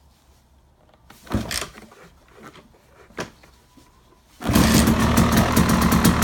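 KTM EXC dirt bike being kickstarted: a kick and some knocks in the first few seconds, then the engine catches about four and a half seconds in and keeps running with a rapid, even beat.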